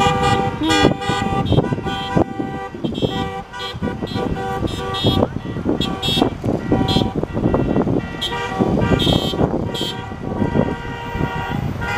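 Car horns of a slow-moving caravan of cars, many of them honking at once in overlapping, repeated blasts of different pitches, with wind rumbling on the microphone.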